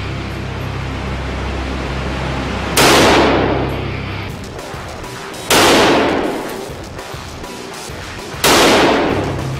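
AK-47 rifle (7.62×39mm) fired three times in single shots, roughly three seconds apart, each report echoing and dying away in an indoor range.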